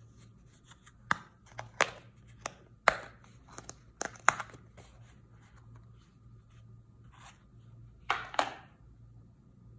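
Sharp clicks and knocks of a small hard plastic case being handled and its lid latches snapped open, about a dozen in the first half. Near the end comes a short rough scraping sound as the tool is taken out.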